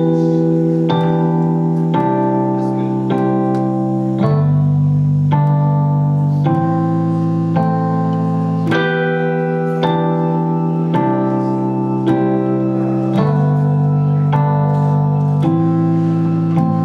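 Electric keyboard in a piano-like tone playing a steady run of sustained chords, a new chord about once a second.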